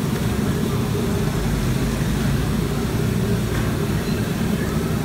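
Gas wok burners under the noodle woks, burning with a steady low rumble.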